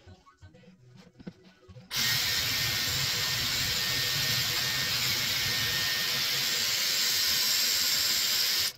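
Dyson Airwrap Multistyler with a long curling barrel blowing air: a loud, steady rush with a faint high whine that switches on about two seconds in and cuts off suddenly near the end.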